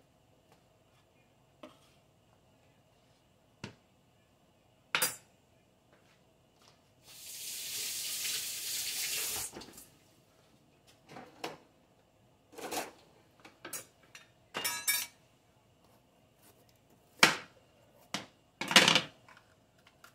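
A kitchen tap runs for about two and a half seconds in the middle, with sharp knocks and clatter of utensils and kitchenware on the counter before and after it.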